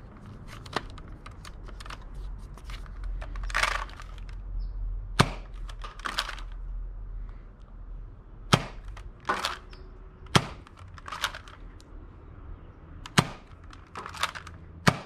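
Nerf Hammershot foam-dart blaster cocked and fired five times: each time a short rasp as the hammer is pulled back, then a sharp snap as the dart fires. A smaller click about a second in.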